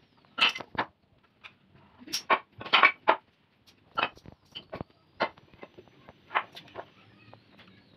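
Teak boards knocking and clattering against each other and the tiled floor as they are moved and set in place, a dozen or so irregular sharp knocks.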